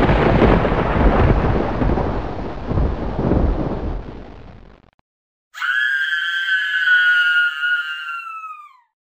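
A thunderclap with rolling rumble that fades out after about five seconds, followed by a long high-pitched wail that holds steady and then falls in pitch at its end.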